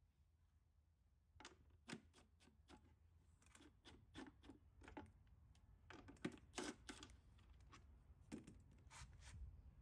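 Faint, irregular light metallic clicks and ticks of small hardware being worked by hand: a driver bit, bolt and washer on a tee nut that has stripped in the plywood.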